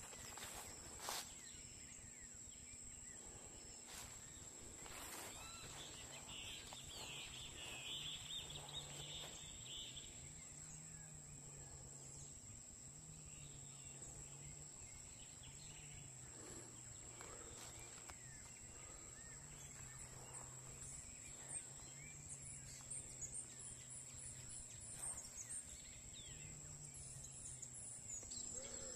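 Faint rural outdoor ambience: scattered bird chirps over a steady high whine, with a faint low hum through the middle and a couple of soft knocks near the start.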